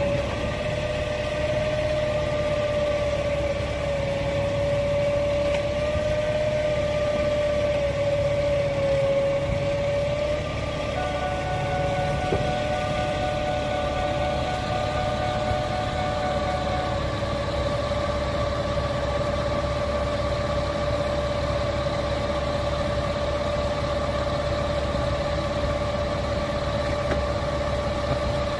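Diesel engine of a Herzog rail-delivery train running steadily, with a steady high whine over a low rumble; a second, higher whine joins for several seconds midway.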